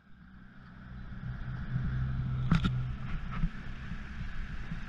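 A boat's engine running steadily with a low hum, fading in at the start, with a couple of sharp knocks on the hull or deck about halfway through.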